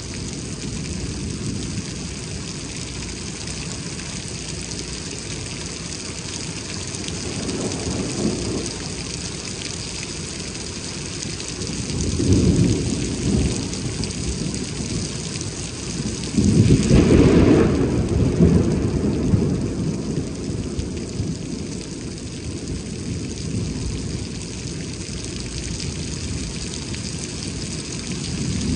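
Heavy rain pouring steadily, with thunder rolling through it: a low rumble about eight seconds in, a stronger one about twelve seconds in, and the loudest peal breaking in sharply about sixteen seconds in and rumbling away over the next few seconds.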